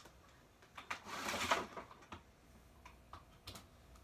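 Handling noise from a hair straightener and its cord being readied to plug in: a few light clicks, and a brief rustling scrape about a second in.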